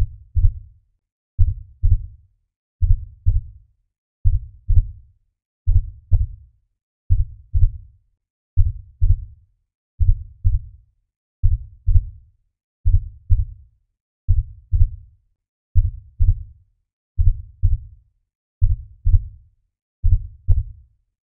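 Heartbeat-style sound: a slow, steady low double thump, lub-dub, repeating about every second and a half.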